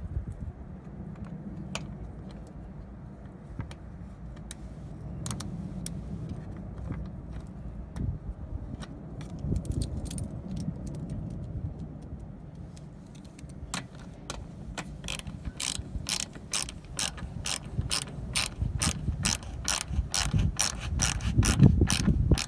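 Ratchet wrench clicking as a 10 mm fastener is run back on: scattered clicks at first, then from a little past halfway a quick, even run of clicks, about three a second.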